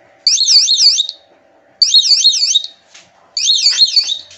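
Homemade e-bike's electronic turn-indicator beeper sounding in a repeating cycle: a short low buzz, then a loud, rapidly warbling high tone, about every one and a half seconds.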